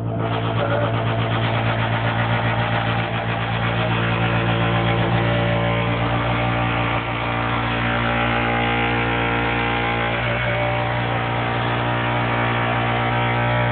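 Ideal Isar HE gas combi boiler making a loud, steady droning hum, with a harsher buzzing noise layered over it that starts at the very beginning and holds throughout.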